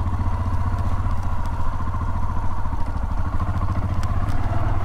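Yamaha XT 600 E's single-cylinder four-stroke engine running steadily at low revs, with an even beat and no revving.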